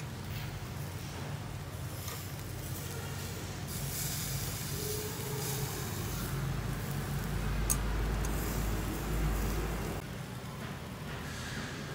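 Pork chops sizzling on a wire grill over charcoal: a steady hiss over a low hum, with one sharp click of metal tongs about eight seconds in.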